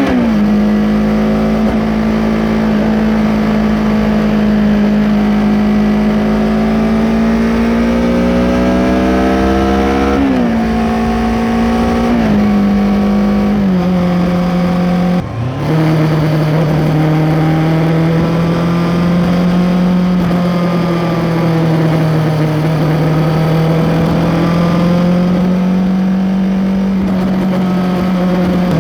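2023 Kawasaki Ninja 650's parallel-twin engine running through an Arrow X-Kone exhaust with dB killer, heard from under the seat cowl while riding. It pulls with slowly rising pitch, then changes up several times in quick succession from about ten seconds in, each shift a sudden drop in pitch and the last with a brief dip in sound. After that it holds a steady cruise with small rises and falls in revs.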